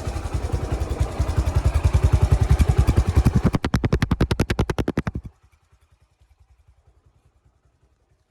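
Repaired Bajaj Platina's single-cylinder four-stroke engine running, heard close to the exhaust silencer as an even beat of about ten pulses a second. About five seconds in the sound drops sharply, leaving only a faint beat.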